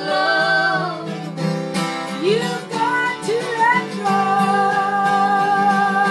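Acoustic guitar strummed under a woman singing long, held notes with vibrato, some of them sliding up in pitch. A second woman's voice joins in at the start.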